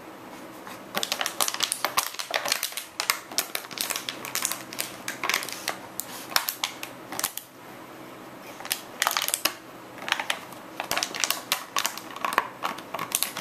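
A golden retriever chewing a disposable plastic water bottle: rapid crackling and crunching of the thin plastic, in two long runs with a short pause a little past halfway.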